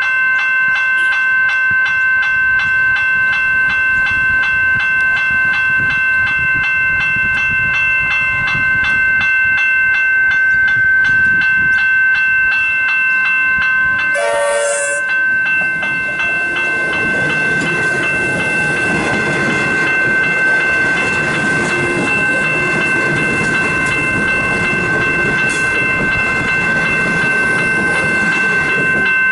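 General Signals electronic level-crossing bells (E-bells) ringing in a fast, steady ring while the boom gates are down. About halfway through a train horn gives a short blast, and then the rumble of a suburban electric train passing over the crossing rises under the bells.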